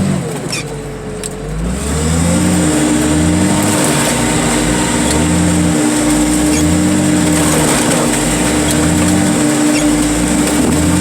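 Heavy machinery engine working under load, its pitch rising and falling over and over as it shoves a car into place; a steady whine joins it about two seconds in.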